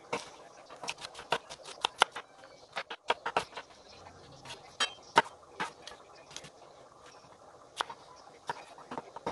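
Kitchen knife slicing an orange bell pepper on a wooden cutting board: sharp knocks of the blade striking the board in quick runs with short pauses, fewer strokes toward the end.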